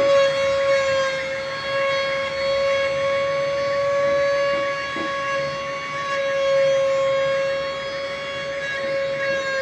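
CNC wood router spindle running with a steady, high-pitched whine that wavers slightly in pitch.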